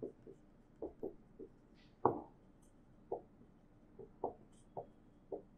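Marker writing on a whiteboard: a dozen or so short, soft strokes and taps at irregular spacing as letters are drawn, the one about two seconds in the loudest.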